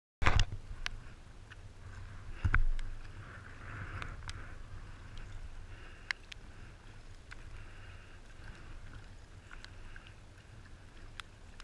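Sea kayak being paddled on calm water: paddle strokes and water splashing and lapping along the hull, with a low rumble and scattered sharp knocks, the loudest a thump about two and a half seconds in.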